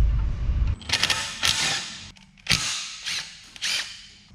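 Pneumatic impact wrench rattling in about five short bursts, undoing the 12 mm bolts on a Nissan GU Patrol's front swivel hub, after a low rumble in the first second.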